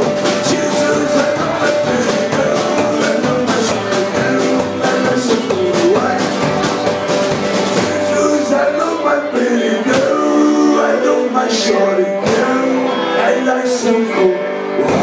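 Live rock and roll band playing: hollow-body electric guitar, upright double bass and drums, with a sung vocal. The drums thin out about halfway through, leaving a few strong accents.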